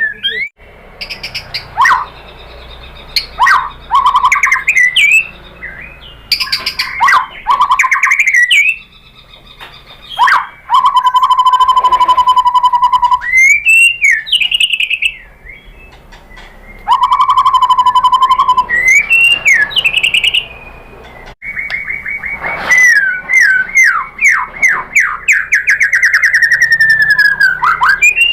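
White-rumped shama singing a long, varied song of loud whistled phrases and rapid trills, with two buzzy rattles held for a second or two in the middle and a long fast run of notes near the end.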